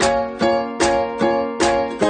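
Music: a plucked string instrument strumming chords at an even pace, about two and a half strums a second.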